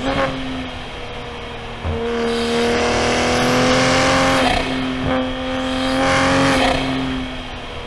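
A90 Toyota Supra's B58 turbocharged inline-six heard from inside the cabin, pulling under throttle from about two seconds in with a steady note, lifting briefly, pulling again, then easing off near the end.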